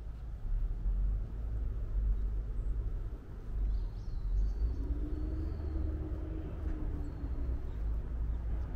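Outdoor city-park ambience: a steady low rumble, with a faint hum joining in the middle and a few faint high bird chirps around the same time.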